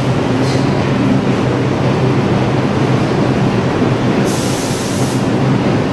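New York City subway 5 train of R142-type cars standing in the station with its doors open, its equipment humming steadily. About four seconds in, a short hiss of released air lasts about a second.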